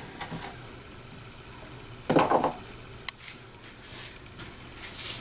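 Handling noises: a short rustling scrape about two seconds in, a sharp click a second later, then a few faint rustles.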